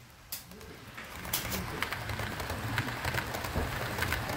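Brass HO-scale model electric train (an E233-series commuter set) running along metal track close by, with a steady rolling rumble and scattered sharp clicks of the wheels over rail joints. It grows louder about a second in as the train draws near.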